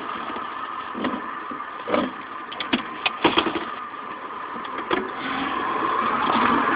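A motor vehicle running steadily, heard from inside a pickup truck's cab, with a few scattered clicks and knocks. The vehicle sound swells a little over the last couple of seconds.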